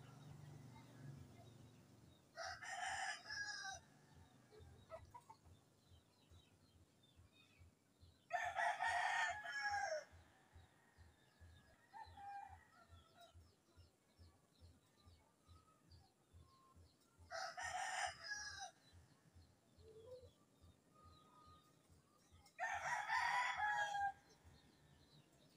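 A rooster crowing four times, each crow about a second and a half long and several seconds apart, with faint short bird chirps between the crows.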